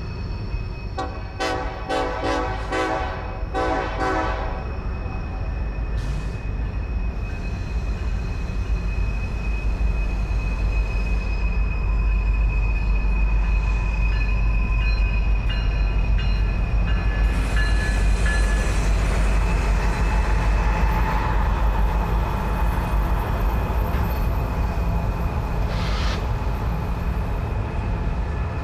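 A diesel freight locomotive's air horn sounds for about three seconds near the start. Then comes the steady low rumble of diesel locomotives and rolling freight cars, growing louder, with a thin high squeal from the wheels on the curve.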